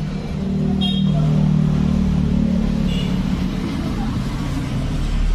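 Steady low rumble of a motor vehicle's engine running, swelling about half a second in and holding, in the manner of road traffic.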